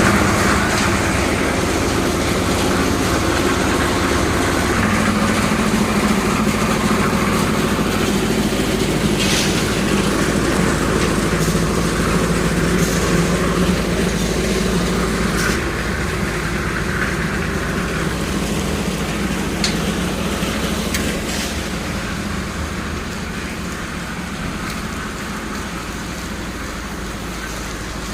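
A construction machine's engine running steadily at a slab pour, with scattered clanks over it. It grows somewhat quieter over the last several seconds.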